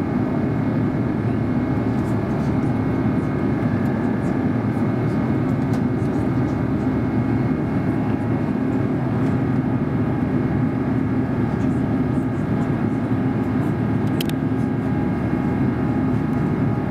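Steady cabin noise of an Airbus A350-941 climbing after takeoff: the rush of air along the fuselage and the drone of its Rolls-Royce Trent XWB-84 engines, with a steady hum running under it. A brief click sounds about 14 seconds in.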